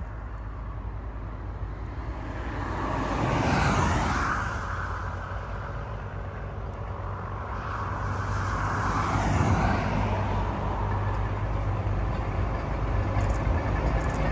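Small diesel shunting locomotive running as it approaches slowly along the track. Its low, steady engine hum grows louder toward the end. Two swells of rushing noise rise and fall over it, about three to four and nine seconds in.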